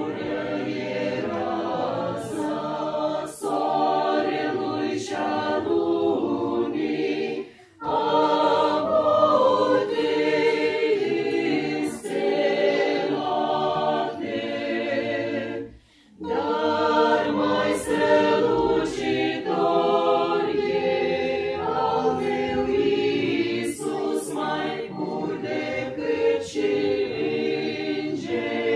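Mixed choir of men's and women's voices singing a hymn in parts, unaccompanied, under a conductor. The singing breaks off briefly twice, about 8 and 16 seconds in, between phrases.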